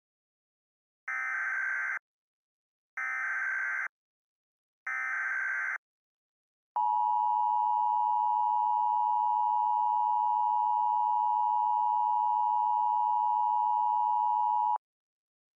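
Emergency Alert System header: three one-second bursts of SAME digital data tones, then the steady two-tone EAS attention signal (853 and 960 Hz) for about eight seconds, which cuts off suddenly.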